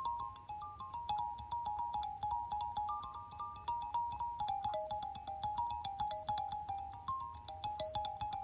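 Kalimba playing a gentle melody of single plucked notes, a few a second, each ringing briefly.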